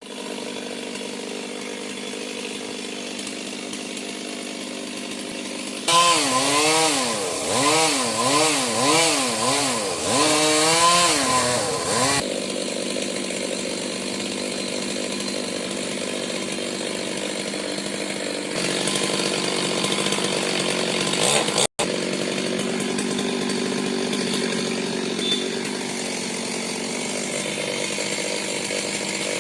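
Chainsaw running, revved up and down about eight times in quick succession from about six seconds in, then running steadily again.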